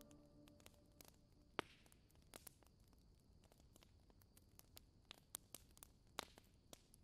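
Near silence with faint, irregular ticks of a fine-tip pen's nib tapping and stroking on paper as small patterns are inked; the last of a music track fades out about a second in.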